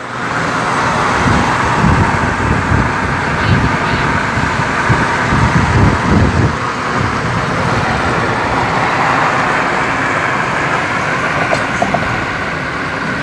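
Steady road and wind noise of cars travelling at highway speed, heard from inside a moving car, with a low rumble that swells and fades several times in the first half.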